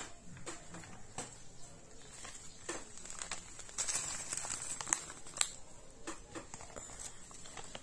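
Scattered light clicks and clinks of dishes and cutlery in a loaded dishwasher's wire rack, most frequent around the middle.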